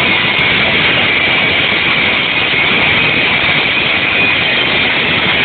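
Car sound system playing so loud that it overloads the microphone: a steady, distorted din in which nothing can be made out clearly.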